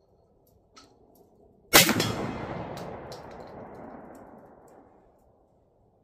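A single 12-gauge slug shot from a Remington 1100 semi-automatic shotgun, about two seconds in, with its echo dying away over about three seconds.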